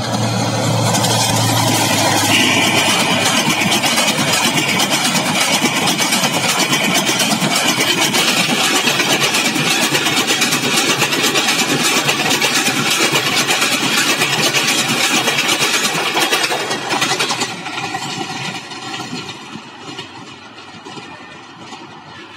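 Diesel locomotive and its passenger coaches passing close by: the engine's low drone as the locomotive arrives, then the steady rattle and rumble of the coaches' wheels on the track. A high steady tone runs from about two to eight seconds in. The noise dies away over the last few seconds as the train moves off.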